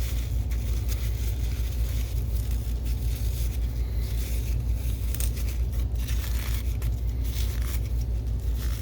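Irregular scraping and rustling as caked-on dust is worked loose from the blades of a small projector blower fan, over a steady low hum.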